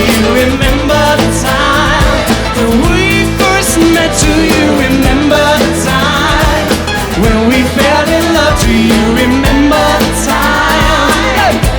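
A live song performance: a singing voice over a band accompaniment, in a slowed-down reworking of a pop song.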